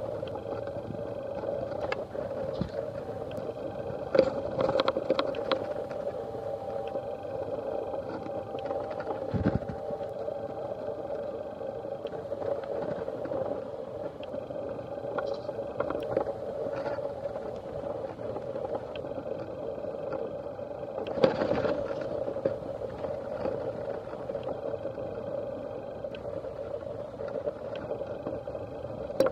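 Steady drone of a bus's engine and tyres, heard inside the cabin while it drives at speed on an expressway, with scattered rattles and knocks. One knock about two-thirds of the way through is louder than the rest.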